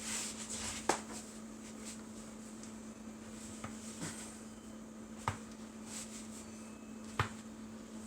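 Joints in a stiff back cracking during a back crack: three sharp pops, about a second in, about five seconds in and near the end, with a couple of fainter clicks between them.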